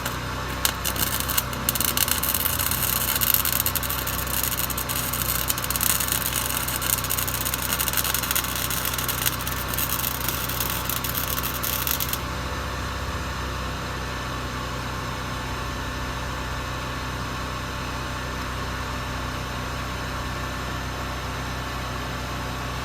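An engine running steadily throughout. Over the first half a loud crackling hiss with scattered clicks sits on top of it, then cuts off suddenly.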